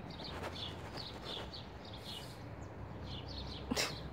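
A small bird chirping over and over, short high chirps about two a second, with a brief sharp knock near the end.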